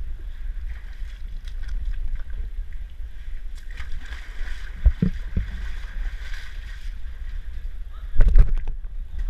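Steady low rumble of wind and handling on an action camera's microphone, with a faint wash of water behind it. A few knocks come about five seconds in, and a cluster of heavy thumps near the end as the wooden steps are climbed.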